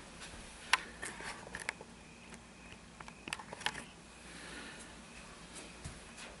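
Handling noise close to the microphone: scattered clicks and knocks, with a sharp click under a second in and a few more a little past the middle, then a soft fabric rustle.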